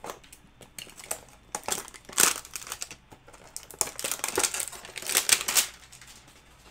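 A 2020 Chronicles football card pack's wrapper being torn open and crinkled by hand, in crackly bursts about two seconds in and again from about four seconds to nearly six.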